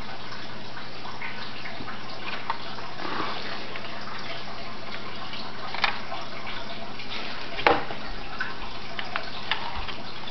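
Steady background hiss with a low hum, broken by scattered light clicks and two sharper knocks, from a small plastic RC truck being handled.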